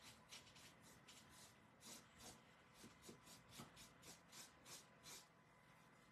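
Flat paintbrush stroking black chalk paint onto a canvas board: a faint, soft scratch with each stroke, about three strokes a second, stopping about five seconds in.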